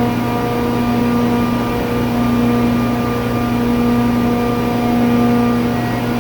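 A 400 hp booster compressor on the low-pressure side of an ammonia (R-717) refrigeration system, running steadily with a loud, even hum.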